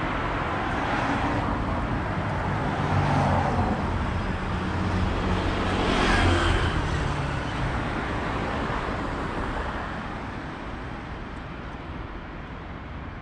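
Road traffic on a busy street: cars passing close by, loudest about three and six seconds in, then fading away near the end.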